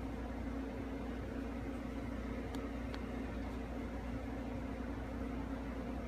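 Minka Aire Simple 44-inch ceiling fan running steadily at speed: a constant motor hum under the even rush of air from its blades.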